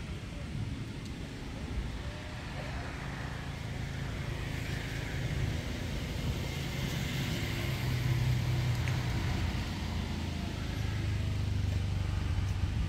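A motor vehicle's engine running with a low, steady hum over a faint outdoor hiss, growing somewhat louder partway through.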